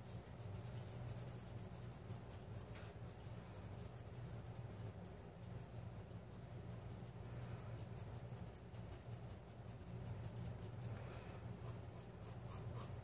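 Faint scratching of a graphite pencil on sketch-pad paper, in quick repeated short strokes as an area is shaded with hatched contour lines.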